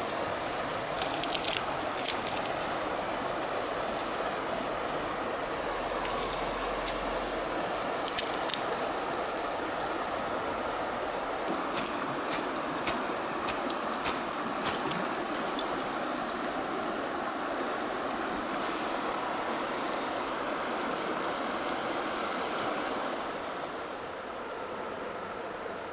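A river rushing steadily, with scattered sharp clicks and knocks over it: a few about a second in, one around eight seconds, and a run of about six spaced clicks a few seconds later. The rushing drops a little near the end.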